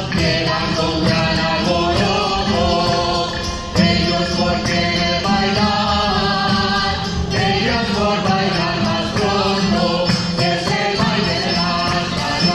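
Spanish folk song: a group of voices singing over a steady tambourine beat, played as dance music.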